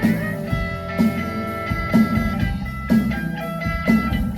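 Rock band playing an instrumental passage between sung lines: guitar notes over bass and drum kit, with a strong accent about once a second.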